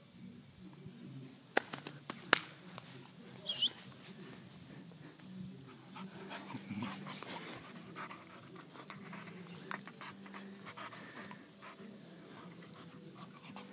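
American Pit Bull Terrier puppy panting and mouthing a hand during play, with small ticks and rustles. Two sharp clicks come about two seconds in, followed by a brief high squeak.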